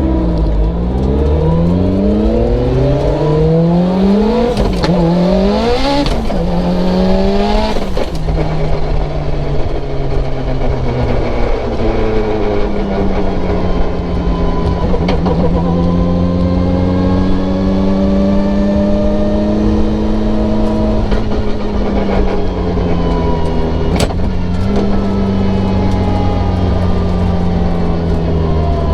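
Mitsubishi Evo 8's built, turbocharged 2.0-litre four-cylinder engine pulling hard at full throttle, climbing in pitch and dropping sharply at each of several quick upshifts through a sequential dog box. After about eight seconds it runs on with slow rises and falls in pitch, with a few short sharp cracks.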